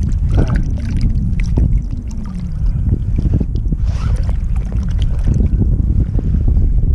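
Wind buffeting the microphone in a steady low rumble, with water sloshing and splashing in short bursts as a gloved hand works in shallow choppy water.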